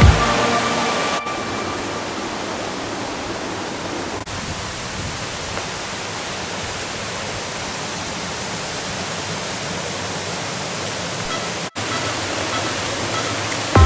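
Steady rush of a large waterfall, an even noise without pitch, with a brief dropout near the end.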